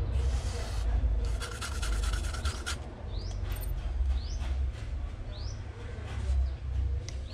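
A short spray hiss, then about a second and a half of quick rubbing strokes as cleaner is worked onto the Yamaha Aerox 155's sun-faded plastic dashboard, over a steady low rumble. A small bird gives short rising chirps about once a second.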